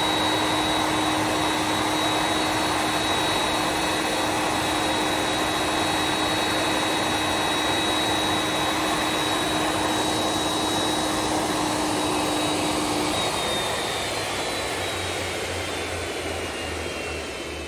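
Boeing 747-400F turbofan engines running at idle, a steady loud roar with a high whine. About thirteen seconds in, the whine starts gliding down in pitch and the noise eases as an engine spools down.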